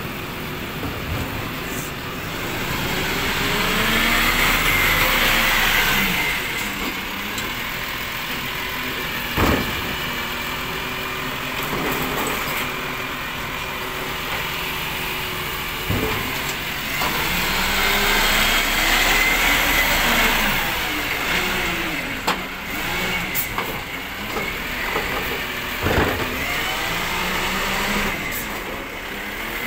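Side-loading recycling truck emptying wheelie bins with its automated hydraulic arm. The engine revs up twice to drive the hydraulics, with rising and falling whines as the arm lifts and lowers. Several sharp clunks come from the bin and arm.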